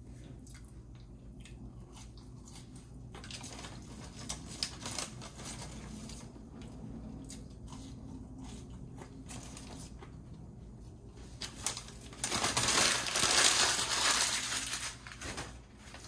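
Close-up eating sounds: soft chewing with small clicks and rustles. About twelve seconds in, a loud crinkling and crushing of paper packaging lasts about three seconds, then stops.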